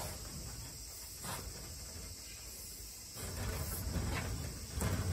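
Steady high insect chirring. Rubbing and a few short scraping sounds as masking tape is pressed along a wooden window frame around a glass pane, with the rubbing heavier from about three seconds in.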